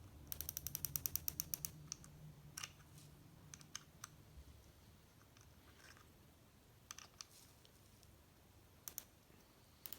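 Sig Sauer Romeo5 red dot sight's adjustment turret being turned, a quick run of about a dozen crisp detent clicks in the first two seconds, then a few scattered single clicks. The clicks are the dot being adjusted to line up with the rifle's iron sights.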